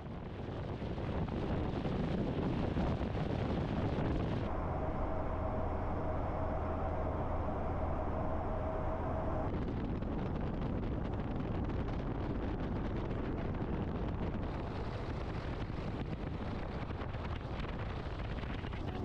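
Wind rushing over the microphone and road noise from a pickup truck towing a boat trailer at highway speed. The noise is steady but changes character abruptly a few times, about every five seconds.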